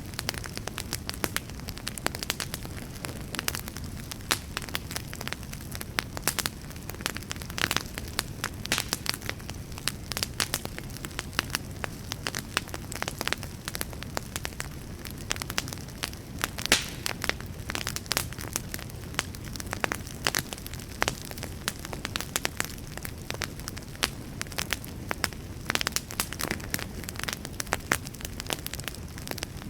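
Wood fire burning with a steady low rumble and frequent sharp, irregular crackles and pops of the burning logs.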